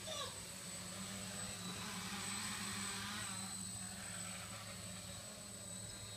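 A V-tail quadcopter in flight: the faint, steady hum and hiss of its electric motors and propellers, swelling slightly in the middle.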